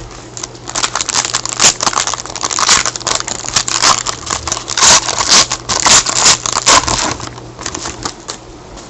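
A foil trading-card pack wrapper crinkling as it is torn open and handled, a dense run of irregular crackles that dies away near the end.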